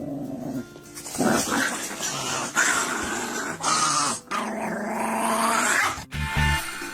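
A dog growling in several rough outbursts, starting about a second in.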